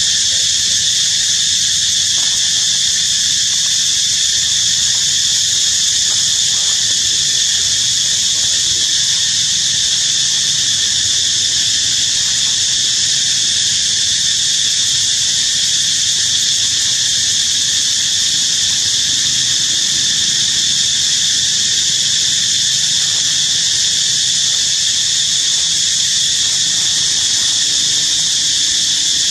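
Steady, dense drone of insects buzzing in chorus, high-pitched and unbroken.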